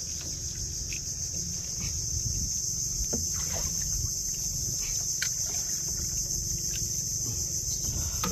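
Steady high-pitched insect chorus buzzing without a break, over a low rumble, with a few faint clicks.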